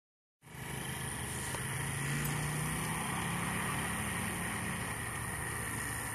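Distant jet aircraft engines: a steady noise that sets in about half a second in and holds.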